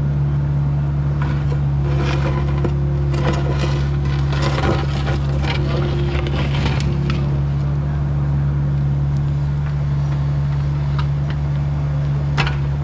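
A Bobcat excavating machine's engine running steadily while its bucket digs, with crunching and scraping of soil and debris through the first half, then the engine hum carrying on with only an occasional knock.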